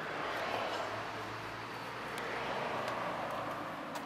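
Mercedes A45 AMG's 2.0-litre turbocharged four-cylinder engine idling steadily, with no revs.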